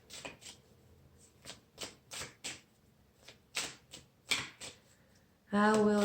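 A tarot deck being shuffled by hand: about a dozen short, irregular card slaps and riffles. A voice comes in near the end.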